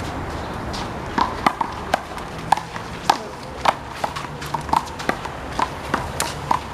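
A rubber handball rally: quick, sharp smacks of palms hitting the ball and the ball striking the wall and the court, about two a second, starting about a second in.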